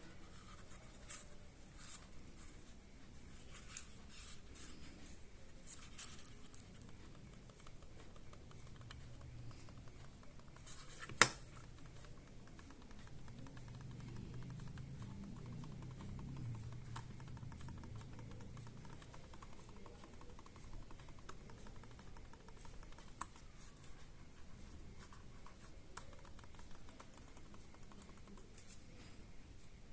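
Logitech M220 Silent mouse being clicked and scrolled: soft, muted clicks and a run of fine, rapid scroll-wheel ticks. One sharp, much louder knock stands out about eleven seconds in.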